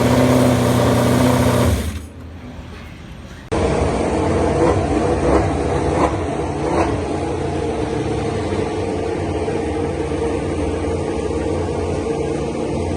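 MotoGP racing motorcycle engines running. One engine holds steady revs and drops away about two seconds in; after a short quieter gap, an abrupt cut brings in engines running steadily, with a couple of brief revs.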